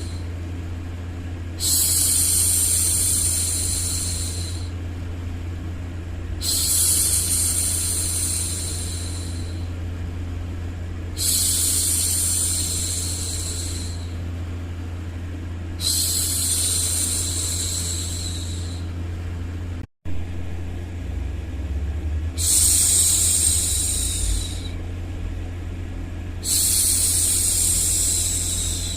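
A woman's voice making long, repeated "shhh" hushing sounds, each lasting about three seconds with short pauses between, six in all, over a steady low hum. The sound cuts out for an instant about two-thirds of the way through.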